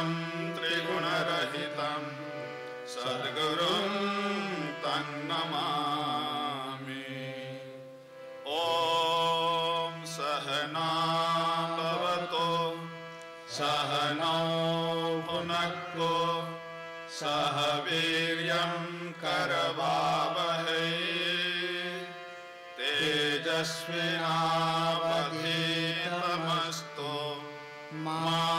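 Kirtan: a harmonium holding steady chords under voices singing a slow devotional chant. The phrases are a few seconds long, with short breaks between them.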